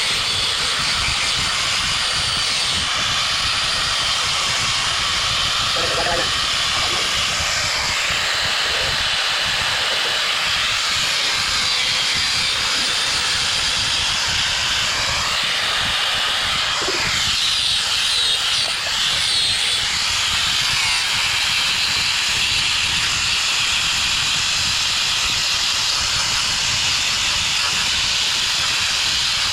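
A steady hissing noise, even throughout, with a faint crackle underneath and a brief dip about eighteen seconds in.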